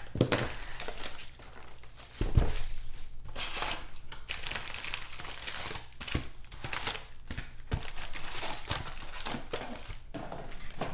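A cardboard trading card box being opened, and the foil-wrapped card packs inside crinkling as they are pulled out and handled, in irregular rustles. There is a thump a little over two seconds in.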